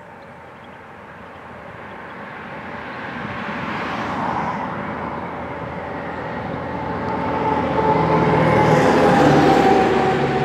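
A passing vehicle: a mechanical drone with several steady tones that builds over several seconds, is loudest about nine seconds in, then starts to fade.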